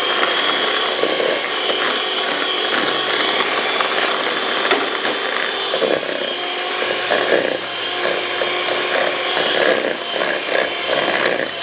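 Electric hand mixer running with a steady motor whine, its wire beaters churning a thick, crumbly mixture of semolina, butter, sugar and egg yolk in a stainless steel bowl.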